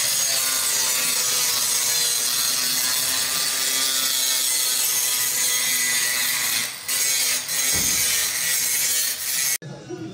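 Angle grinder cutting through the sheet steel of a car's windscreen frame: a steady, harsh grinding with a high whine, easing off briefly two or three times, then stopping abruptly near the end.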